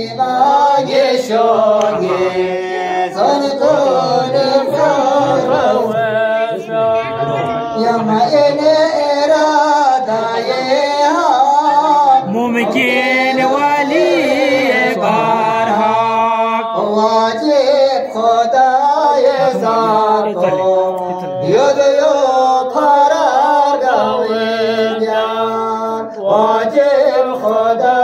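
Men singing a devotional chant-like song unaccompanied, in long melodic lines with turns in pitch.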